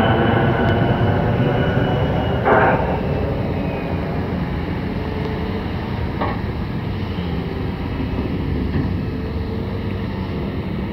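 The Mitsubishi MRJ90's two Pratt & Whitney PW1200G geared turbofans rumbling at climb power as the jet climbs away after takeoff, slowly fading. A brief louder rush comes about two and a half seconds in.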